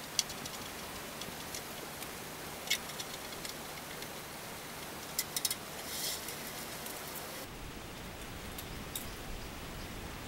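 Light, scattered metallic clicks and taps from hands working on a bicycle's rear hub and crank, over a steady hiss. The clicks come singly or in small clusters, about every second or two, with no even rhythm.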